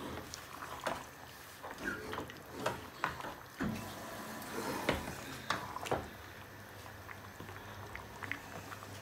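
Wooden spoon stirring a pot of thick fish head curry: irregular knocks and scrapes of the spoon against the pot, over a low steady hum.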